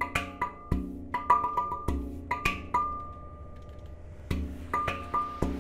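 Background music of sharp struck percussion notes, wood-block-like, over a low bass in an irregular rhythm. The strikes thin out for about a second past the middle, then pick up again.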